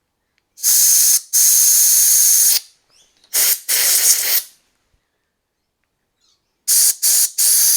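Compressed-air blow gun fired in short hissing blasts into the small oil passages of a Stihl 009L chainsaw's bar oiler, clearing blocked sawdust and old oil. Two longer blasts, then a pair of shorter ones, then after a pause a quick run of short blasts near the end.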